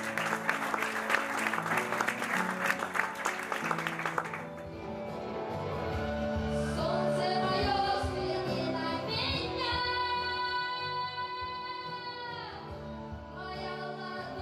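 Audience applause for about the first four seconds over backing music. A girl then starts singing into a microphone over the music, holding one long note for a couple of seconds that falls off in pitch as it ends.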